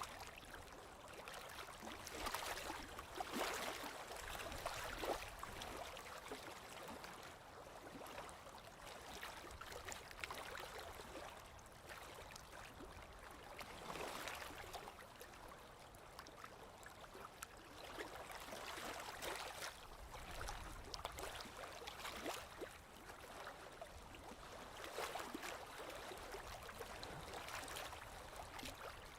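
Small waves lapping gently on a lakeshore, the splashing swelling and easing every few seconds.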